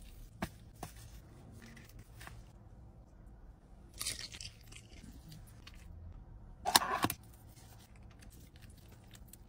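Fried chicken with a crispy coating being torn apart by gloved hands, giving a few short crackles and crunches. A short, louder crinkly rip comes about seven seconds in.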